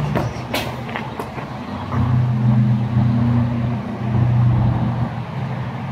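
A vehicle engine running with a steady low hum that grows louder about two seconds in and eases off near the end. About half a second in, a sharp thud of a soccer ball being kicked.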